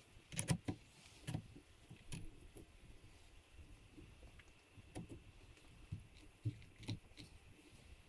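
Leupold quick-release scope rings clicking and knocking, metal on metal, as the scope is set onto the rifle's two-piece QR base. There are a few sharp clicks about half a second in and near a second and a half, then more around five and seven seconds.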